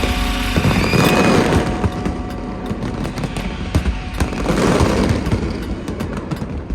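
Aerial fireworks bursting in quick succession: many sharp cracks and bangs over a dense crackle. Music accompanying the show breaks off about half a second in.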